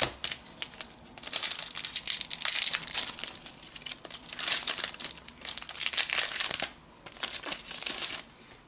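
A trading-card booster pack's plastic wrapper being torn open and crinkled by hand, in four bursts of rustling with short pauses between them.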